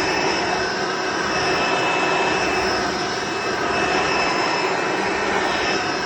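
Hoover Encore Supreme upright vacuum cleaner running loud and steady, a dense rush of air with a high whine on top, its level swelling and dipping slightly now and then.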